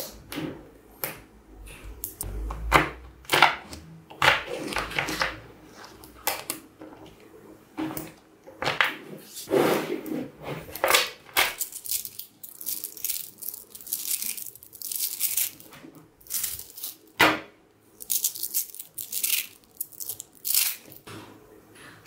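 Small magnetic metal balls clicking and rattling against each other in irregular bursts as a block of them is pulled apart and squeezed by hand.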